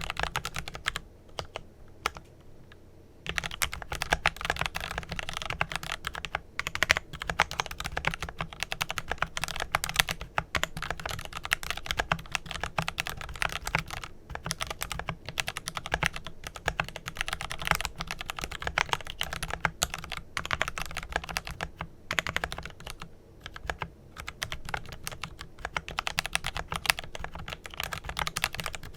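Fast typing on a Glorious GMMK Pro mechanical keyboard with lubed Kailh Pro Purple tactile switches and Glorious PBT keycaps: a dense run of keystroke clacks. It pauses for about two seconds shortly after the start, then carries on with only brief breaks.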